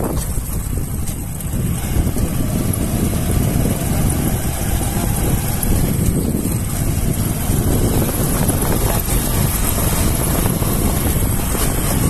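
Wind buffeting the microphone of a camera carried on a moving motorcycle, over the bike's running engine and road noise: a steady, dense low noise throughout.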